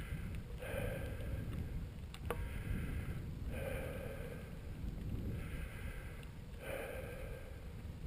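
Low wind rumble on the microphone of a bicycle climbing a paved road, with the rider's hard breathing coming in rhythmic breaths every second or two. A single light click a little over two seconds in.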